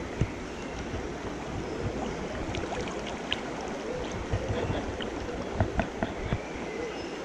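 Shallow river water flowing and rippling steadily, with a few faint knocks and clicks scattered through it.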